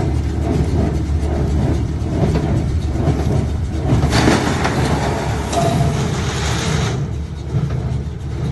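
Claas Dominant square baler running with its tractor: a steady low engine rumble with rhythmic mechanical clatter from the baler, and a spell of hiss from about four to seven seconds in.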